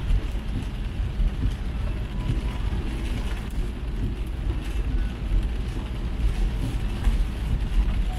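A car driving in heavy rain: a steady low rumble of engine and tyres on the road under an even hiss of rain on the car.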